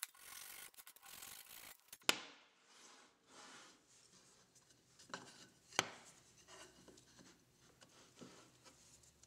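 Soft strokes of a flush-cut saw trimming wooden dowels flush with the plane body, then the saw is set down with a sharp clack about two seconds in. After that come faint handling noises of the wooden plane parts, with another sharp knock near the middle.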